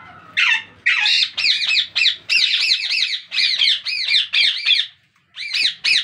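Indian ringneck parakeet squawking: a fast run of harsh, rasping screeches, about three a second. The run breaks off briefly near the end, then starts again.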